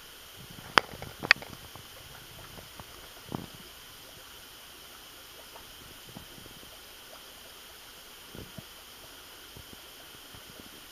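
Two sharp clicks close together about a second in, then a softer knock, over a steady faint hiss.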